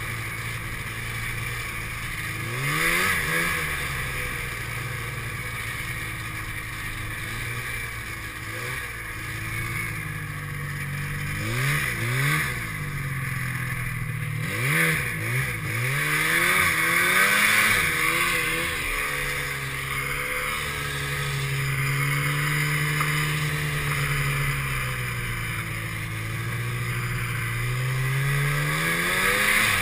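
Snowmobile engine running under way, revving up and down several times with sharp rises and falls in pitch, then holding a steadier pitch through much of the second half. A constant higher hiss runs over the engine.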